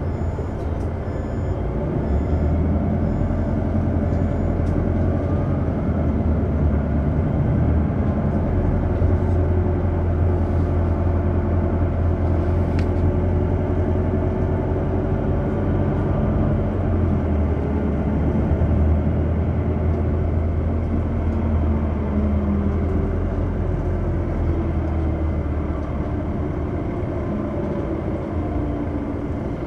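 Interior cabin noise of a BCI Proma bus under way: a steady low engine and drivetrain hum with road noise. The engine note slowly rises and falls as the bus accelerates and eases off.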